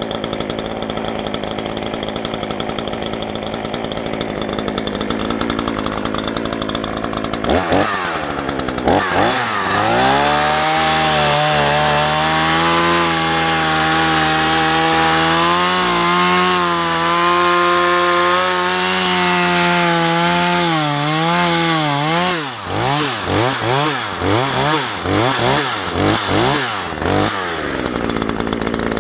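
Two-stroke chainsaw running at low speed, then revved up about seven seconds in and held at high speed with a slightly wavering pitch. Toward the end it is blipped up and down about seven times before it drops back to idle.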